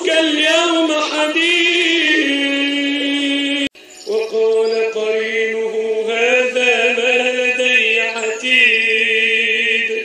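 A man chanting Quranic recitation in a melodic tajweed style, drawing out long ornamented notes. About four seconds in the voice cuts off briefly with a click, then resumes with another long held phrase that ends near the end.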